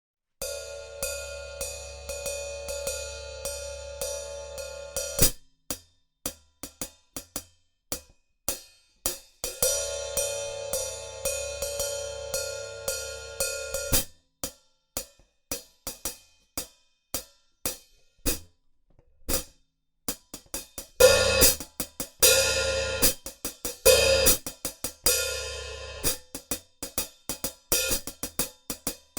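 A 14-inch Sabian HHX Stage hi-hat played with hickory drumsticks. For the first five seconds, and again from about nine to fourteen seconds, quick strokes ride over a steady ringing wash. In between and after come short, dry strokes with gaps. In the last third, loud strokes ring out as accents among quicker ones.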